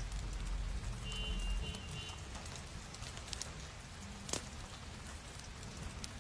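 Paper and stationery being handled for journaling: soft rustling and small scattered taps, with one sharper click about four seconds in. A low rumble underneath stops after about a second and a half.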